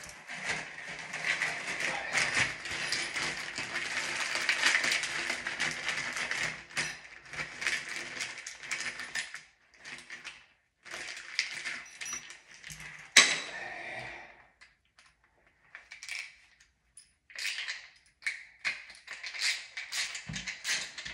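Small shower trim parts being handled: rustling and clinking of plastic and metal pieces, busiest in the first six seconds, then in short bursts, with one sharp click about 13 seconds in.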